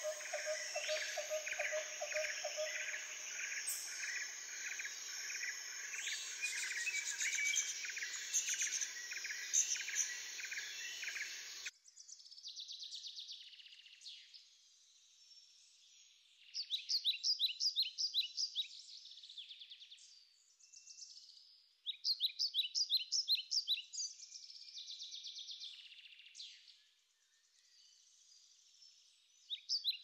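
Birds chirping over a dense, rhythmic insect chorus. About twelve seconds in, the chorus cuts off suddenly, leaving repeated bursts of rapid, high chirps.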